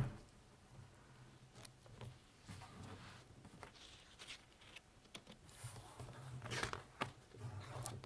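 Faint handling sounds of a large hardcover picture book being opened and its pages turned: soft paper rustles and light taps against a table, with a sharper knock at the very start.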